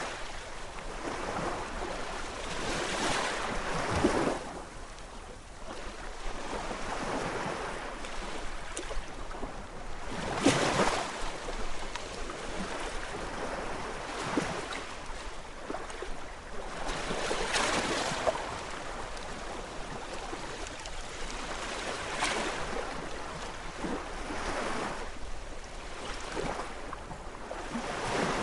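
Gentle waves of a calm sea washing in, a steady hiss that swells and fades every few seconds as each wave comes and goes.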